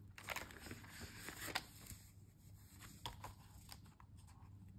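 Paper banknotes and a plastic binder envelope being handled: faint rustling and crinkling with a few sharp clicks.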